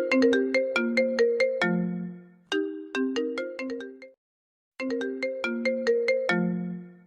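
iPhone ringtone playing: a short, quick melody of bright ringing notes that repeats every few seconds. About four seconds in it breaks off for half a second of silence, then starts over.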